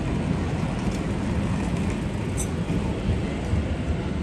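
Steady low rumble of city street ambience, mostly traffic noise, with no single vehicle passing.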